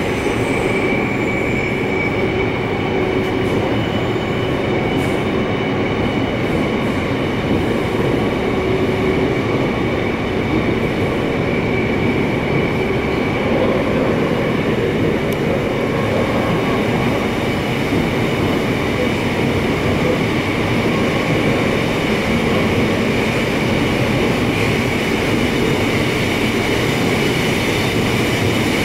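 Seoul Subway Line 9 electric train running at speed, heard from inside the passenger car: a steady, even rumble of wheels on rail and air noise, with a thin high steady whine over it.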